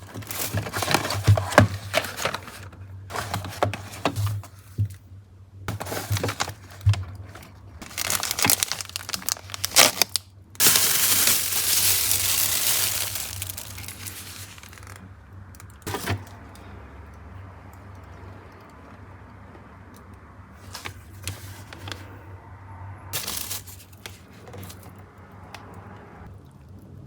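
Plastic packaging crinkling and rustling in irregular bursts as it is handled, then a steady hiss lasting about three seconds in the middle, followed by a few scattered clicks and rustles.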